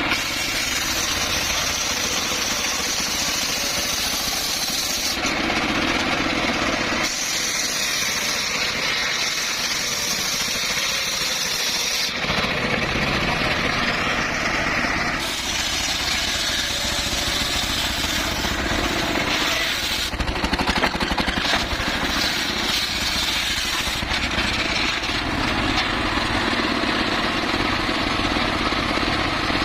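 Large circular saw running and cutting through timber, a loud continuous machine noise whose tone shifts every few seconds as the blade goes in and out of the wood.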